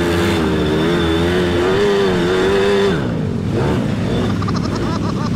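ATV engine running under throttle with its pitch wavering slightly, then easing off about three seconds in into a lower, rougher running.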